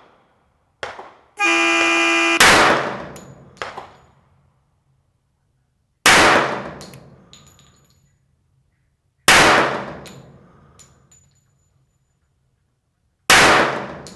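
A steady range start signal tone lasting about a second, then four pistol shots from a red-dot-sighted semi-automatic pistol, spaced about three to four seconds apart as in a bullseye timed-fire string. Each shot rings out and dies away over about a second.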